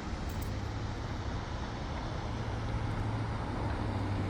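Steady outdoor rushing noise with a constant low hum underneath.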